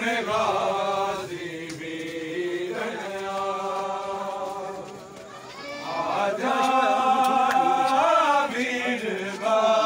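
Men's voices chanting a noha, a Shia mourning lament, sung in long drawn-out notes in two phrases with a short dip in the middle.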